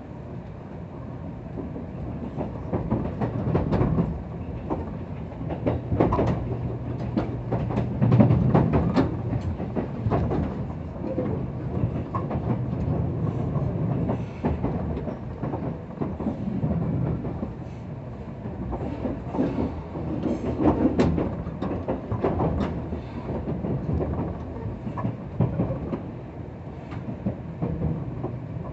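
Inside a JR Kyushu 783 series limited express car in motion: a steady rumble with the wheels clicking and clacking over rail joints, swelling louder a few times.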